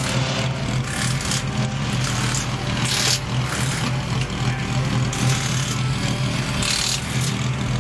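1996 BMW M3 Lightweight race car's engine idling steadily, with several short hissing bursts a couple of seconds apart.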